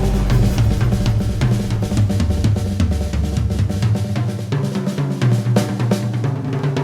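Drum kit played busily, with kick, snare, toms and cymbals in fast, dense strikes, over a held, pitched soundscape backing. The deepest bass of the backing drops away about four seconds in.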